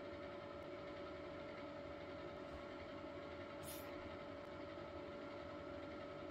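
Steady machine hum with a constant tone, unchanging throughout. A brief faint hiss about three and a half seconds in.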